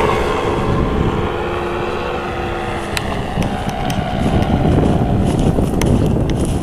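A paramotor's engine drones as the powered paraglider flies away, its pitched drone fading over the first second or two. Uneven gusts of wind on the microphone then grow louder through the middle, with a few light clicks.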